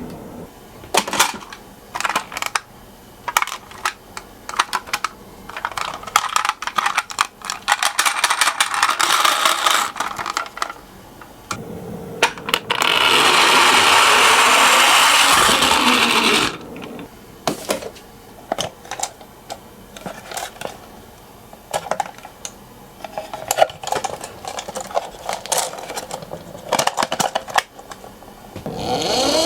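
Small toy cars clicking and clattering on a hard track in quick, irregular runs of ticks and rattles. Midway, for about four seconds, a louder steady whirring covers the clicks.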